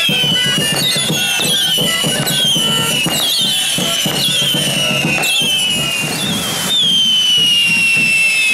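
Whistling fireworks going off one after another, each shrill whistle sliding down in pitch, with crackling pops among them. About two-thirds of the way through a louder, longer whistle starts over a steady rushing hiss.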